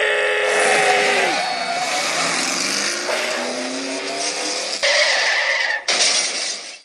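Dubbed race car sound effect: a stock-car engine note that drops, then climbs as the car accelerates, with tyres skidding and squealing. It changes abruptly twice near the end, as separate clips are spliced in, and cuts off just before the end.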